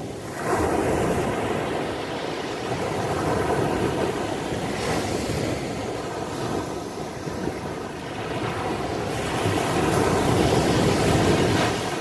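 Small Mediterranean waves breaking on a sandy beach and washing up the shore, a steady rush of surf that swells about half a second in and grows loudest near the end as the next wave breaks.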